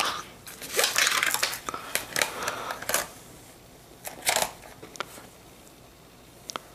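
Plastic airsoft pistols and a nylon holster being handled: rustling and scraping for about the first three seconds, then a few separate sharp plastic clicks and knocks.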